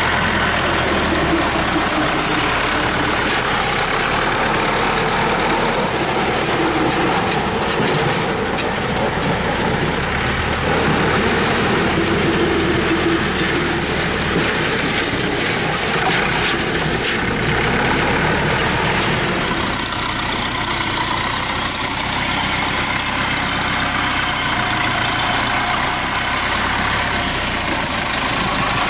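Zetor tractor's four-cylinder diesel engine running steadily as the tractor drives. The tone shifts slightly about two-thirds of the way through.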